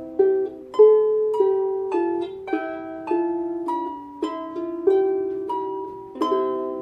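Irish harp playing a slow melody, plucked notes about every half second over ringing lower strings, ending on a chord that is left to ring out.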